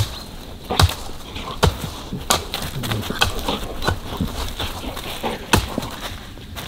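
Two dogs play-fighting and scuffling in dry leaves and twigs, with sharp snaps at irregular intervals, roughly one a second.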